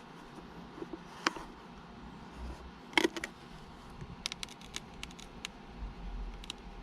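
Scattered light clicks and ticks of screws and a hand tool being worked out of a car's plastic centre console: a click about a second in, a sharper pair around three seconds, then a quick run of small ticks.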